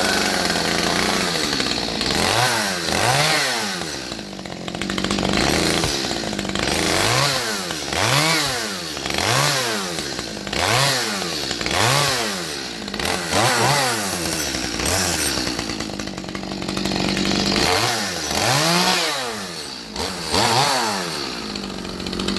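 Chainsaw engine revved hard again and again, its pitch rising and falling back roughly once a second. It runs more steadily for the first couple of seconds and again briefly in the middle.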